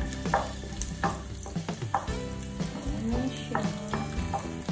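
Garlic cloves sizzling in hot oil in a nonstick frying pan, stirred with a wooden spatula that knocks and scrapes against the pan several times.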